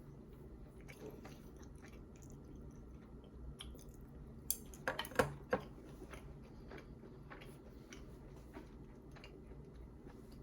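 A person eating: quiet chewing and biting with small scattered clicks, and a short run of louder clicks and knocks a little past halfway through.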